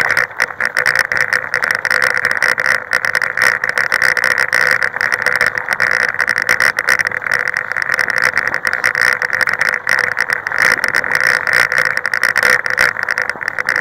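Motorbike engine running at a steady speed on a camera mounted to the bike, with frequent short knocks and rattles from riding over a rough, stony dirt track.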